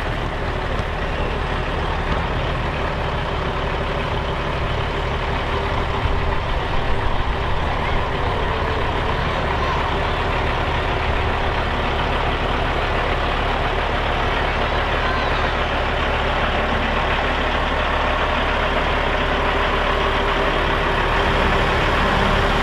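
Engine of a heavy vehicle such as a truck running steadily, with a few short louder peaks about six to eight seconds in.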